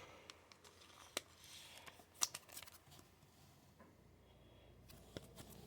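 Trading cards being handled and slid over one another, with faint rustles and a few soft clicks.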